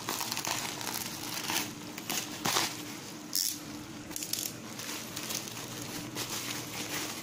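Black plastic packaging being handled and crumpled by hand, rustling and crinkling irregularly with a few sharper crackles.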